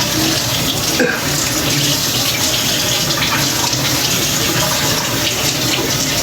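Water tap running steadily into a sink while hands are washed under it.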